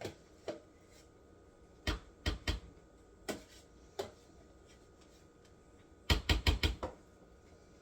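Kitchen utensil tapping and knocking against a dish as butter goes into a bowl of corn: scattered single taps, then a quick run of about six taps a little after six seconds in.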